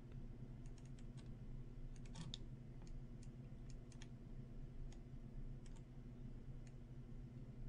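Faint, irregular clicking of a computer mouse and keyboard, about a dozen clicks with a quick cluster about two seconds in, over a steady low electrical hum.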